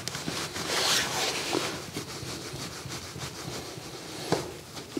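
Hand screwdriver turning the clamp screw of a plastic hollow-wall electrical box in drywall: a dry scraping rub with many small ticks and a couple of sharper clicks near the end, as the clamp lips draw tight behind the board to lock the box in place.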